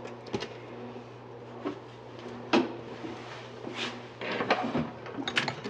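Hard plastic parts of a snowflake decoration being handled and knocked together during a glue repair: a run of irregular clicks and knocks, the loudest about two and a half seconds in and a quicker cluster near the end, over a steady low hum.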